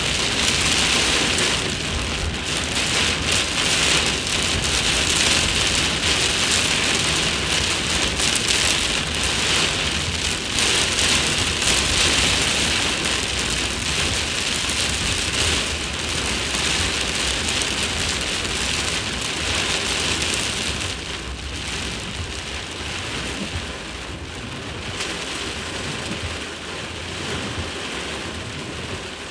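Very heavy rain pouring down, a dense steady hiss that is pretty intense, easing slightly about two-thirds of the way through.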